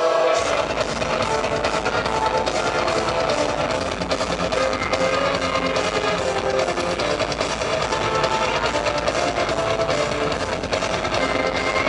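Live heavy metal band playing loud through a concert PA, heard from the crowd: drums, bass and electric guitars come in together a moment in, over the sustained sung intro.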